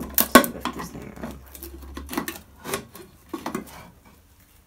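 Clatter of small hard objects being handled: a run of light knocks and clinks, busiest in the first two seconds and thinning out towards the end.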